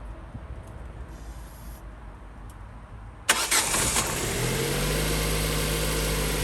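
Petrol Ford Focus engine cranked and catching suddenly about three seconds in, with a short rough flare, then settling into a steady idle. It starts now that a blown fuse in the fuel supply has been replaced.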